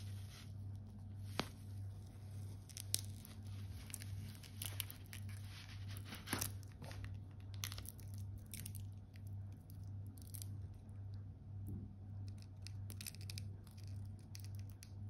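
Handling noise as a stainless steel bracelet watch is unboxed: protective plastic film crinkling and tearing, with scattered light clicks and rustles, the sharpest about a second and a half in and around three and six seconds in. A steady low hum runs underneath.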